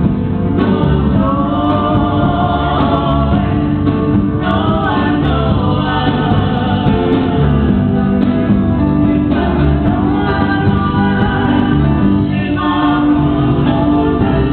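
Live music: several voices singing together over electric keyboard accompaniment.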